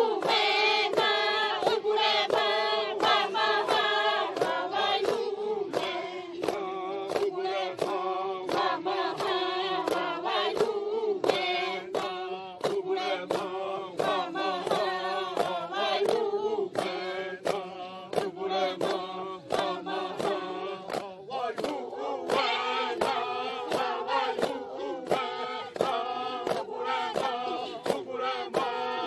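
A group of Xavante women singing a chant in unison, with a sharp, regular beat about twice a second under the voices.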